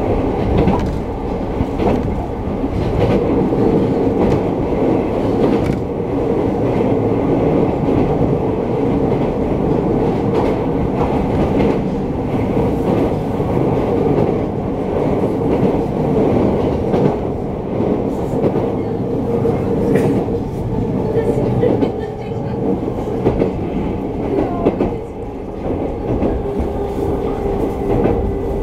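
Running noise inside a JR East E217-series electric train at speed: a steady rumble of wheels on the rails with a steady hum on top.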